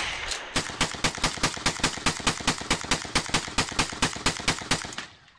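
Gunfire: one loud shot, then a long, rapid, even string of shots at about eight a second from a magazine-fed shotgun, red shells ejecting, stopping about five seconds in.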